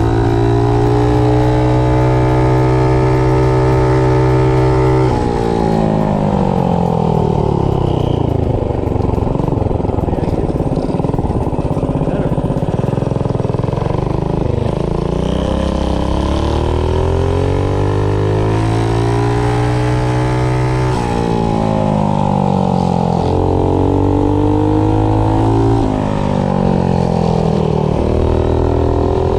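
Predator 212 single-cylinder four-stroke engine with a GX160 head, powering a mini bike: held at high revs, then dropping off about five seconds in. It builds back up slowly, then revs up and falls back three more times near the end.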